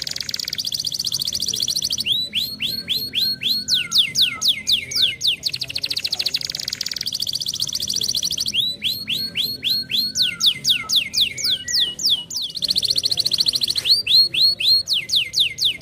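Canary singing: long rapid rolling trills alternate with runs of quick, high descending whistled notes, the phrases cycling over and over.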